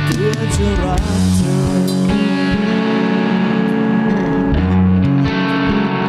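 Rock music led by electric guitar through effects, holding sustained chords that change every second or two.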